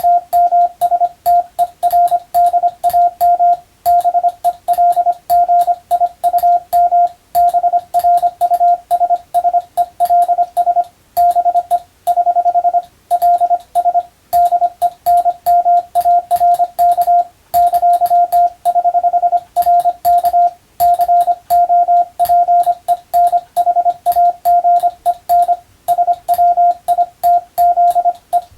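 Morse code (CW) sent by hand on a telegraph key: a single steady beep tone keyed on and off in dots and dashes at an even pace, with short pauses between words and a click at each key stroke. It is practice sending of an English-letter telegram text.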